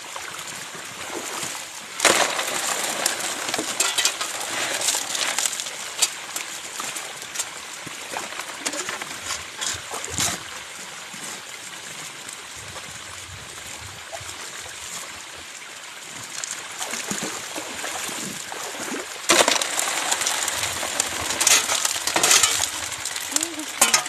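Water running through a metal high-banker sluice box, with gravel and stones rattling and clinking over the metal in two loud stretches, about two seconds in and again near the end.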